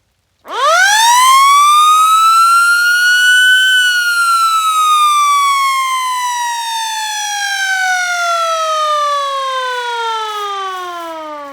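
FS 28H siren sounding a short alert on its weekly test. About half a second in it winds up quickly, reaching its highest pitch after about three seconds, then slowly winds down, the pitch falling steadily and still sliding down at the end.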